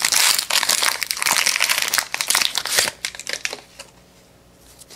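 A trading-card pack's plastic wrapper crinkling as it is torn open and handled: dense crackling for about three seconds, then dying away to faint rustling.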